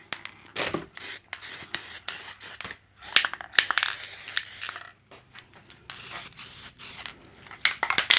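Aerosol spray-paint can (rattle can) spraying in several hissing bursts of a second or two each, with short pauses between presses of the nozzle.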